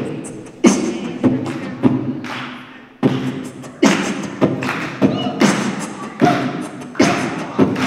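Beatboxing into a microphone, amplified over a PA: a steady beat of punchy kick-like hits, roughly three every two seconds, with vocal percussion sounds between them.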